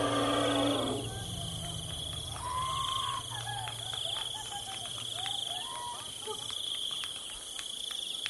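A steady, high-pitched pulsing chorus of insects, with short bird chirps in the middle. A rough noise with a held tone sounds in the first second, and a low steady hum runs until about six seconds in.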